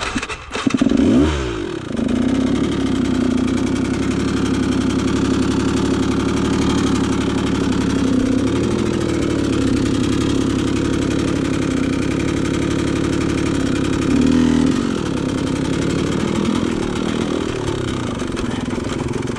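Dirt bike engine revving up and back down about a second in, then running steadily at low revs under load over rough ground, with another short burst of throttle about three quarters of the way through.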